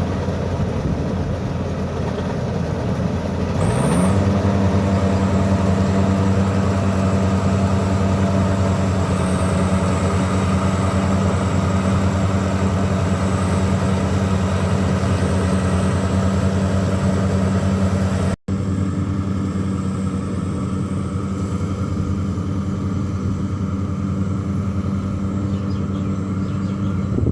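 Rice combine harvester's engine running under load, revving up about four seconds in and then holding a steady high speed.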